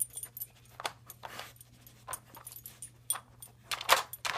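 Husky puppy working a plastic treat puzzle with its nose and paw: scattered light clicks and clacks of the plastic pieces and its collar tag, with louder knocks near the end.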